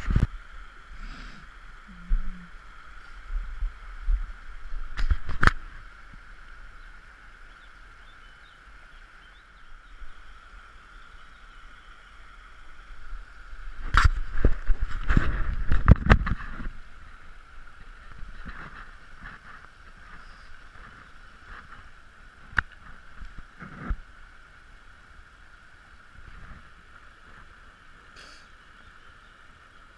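Shallow stream running over rocks, a steady rush throughout. Over it, close knocks and rustles of the angler's gear and clothing handling, loudest in a cluster about halfway through.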